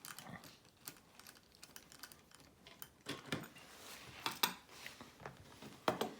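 Light, irregular clicks and taps of a hex driver and tiny screws against the plastic shock mounts and frame of a 1/24-scale RC crawler while a shock is unbolted and remounted. A few sharper knocks come in the second half.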